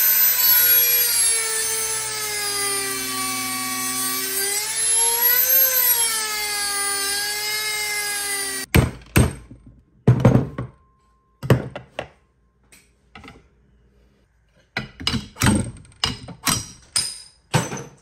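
Dremel rotary tool running at a high whine as it grinds on the old bearing race on the wheel hub, its pitch sagging under load and recovering. It stops suddenly about nine seconds in, followed by a scattering of short sharp knocks.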